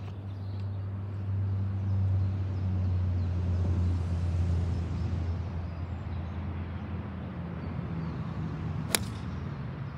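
A steady low engine hum that swells and then eases off, then the sharp crack of a golf club striking a ball off the tee about nine seconds in.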